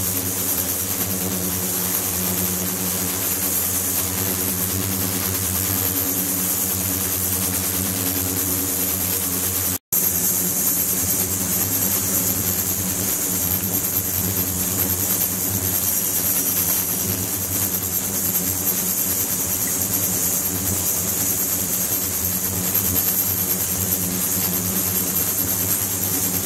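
Ultrasonic tank running with its liquid circulation on: a steady electrical hum of several evenly spaced tones under a high hiss, with water churning at the circulation outlet. The sound cuts out for an instant about ten seconds in.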